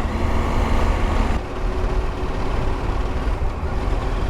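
KTM motorcycle engine running as the bike is ridden, heard through an in-helmet microphone with a strong low rumble. About a second and a half in, the engine note drops and gets quieter as the throttle eases, then runs on steadily.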